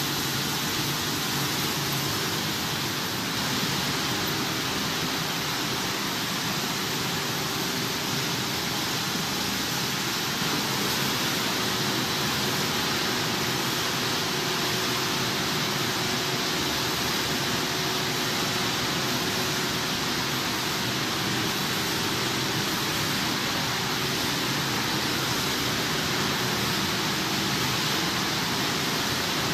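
Multi-layer automatic drying oven running, its electric blower fans giving a steady, even rush of air with a faint hum beneath it.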